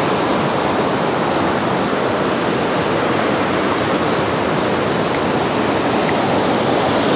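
Steady rushing water, an even, unbroken roar that holds level throughout.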